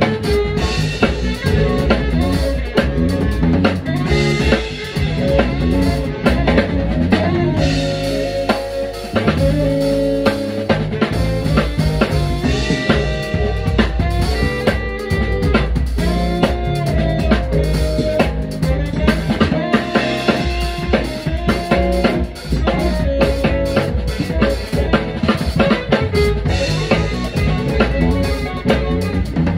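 Live band playing an instrumental number, the drum kit to the fore with snare and bass drum hits over bass, keyboards and horns.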